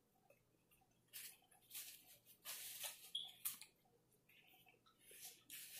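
Faint, close-up mouth noises of eating: chewing and smacking on hot barbecue, in short irregular bursts with a brief squeak about three seconds in.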